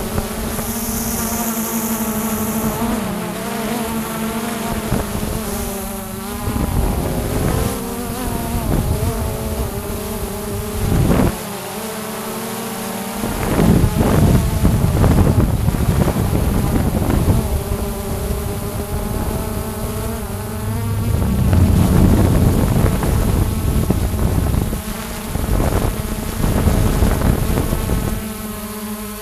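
Quadcopter drone's propellers buzzing steadily, with a louder rushing noise in stretches around the middle and later on.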